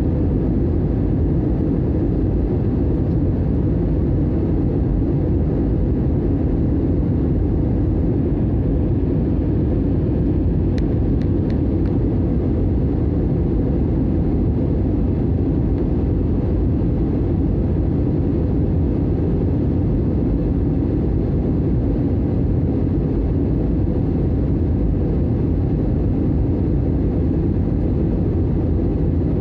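Steady cabin noise of a jet airliner on its descent to land: jet engine and airflow noise heard inside the cabin at a window seat, a deep, even rumble that holds unchanged.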